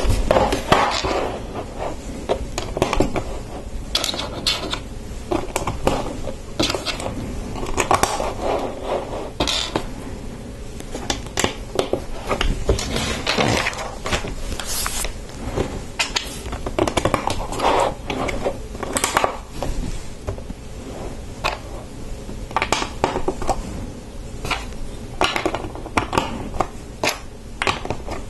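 Hard plastic Lego pieces clicking, rattling and knocking as they are handled and pressed together, with the large molded plastic boat hull scraping and bumping on the tabletop. The clicks come irregularly, several a second at times.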